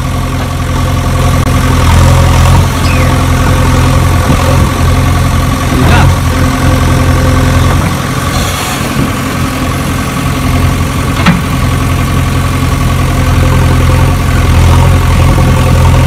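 Heavy machine engine idling with a steady drone, with a couple of short knocks over it.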